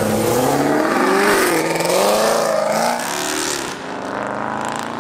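Chevrolet Camaro engine revving, its pitch climbing and dropping several times, then easing off after about three seconds.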